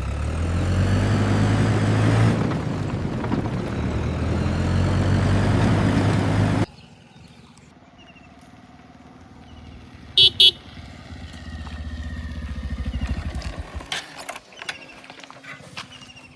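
A heavy engine running loudly, cut off abruptly about six and a half seconds in. Then, over a quieter engine that swells and fades, a vehicle horn gives two short toots about ten seconds in, followed by scattered knocks near the end.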